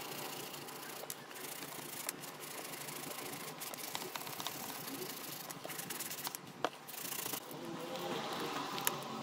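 Stiff-bristled brush scrubbing a soap-lathered Nike Air Max 90 sneaker: a steady scratchy rubbing dotted with small clicks and crackles of foam. Near the end, water is poured over the shoe from a plastic bottle.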